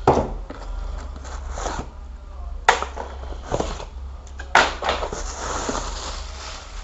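Plastic packaging crinkling and rustling while a VGA cable is unpacked by hand, with a few sharp clicks and knocks as the cable and its connector are handled and set down on a silicone work mat.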